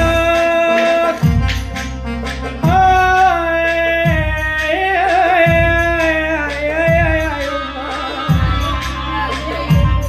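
Music from an Arabic song's instrumental passage: a held, wavering melody line over a steady deep drum beat, one stroke about every second and a half.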